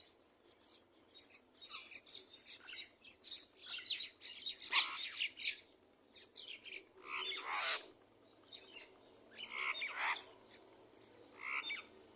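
A bird giving a rapid flurry of short, harsh, scratchy calls, loudest in the middle. After a pause come two more bursts, one past the middle and one near the end.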